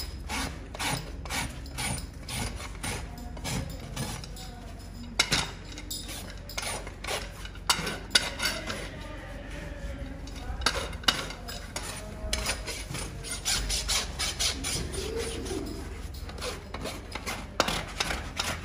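Farrier's rasp filing a horse's hoof in repeated strokes, about two a second, with a few sharper, louder scrapes partway through.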